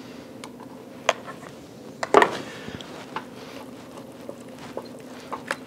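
Scattered light clicks and knocks of a spoon on a small serving dish and a stainless steel pot as pea pesto is spooned into risotto and stirred in with a wooden spoon. The loudest knock comes about two seconds in, over a low steady hum.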